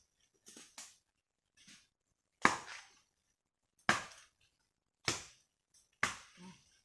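Machete chopping into hard wood: four heavy strikes about a second and a half apart, starting a couple of seconds in, with a few lighter taps before them.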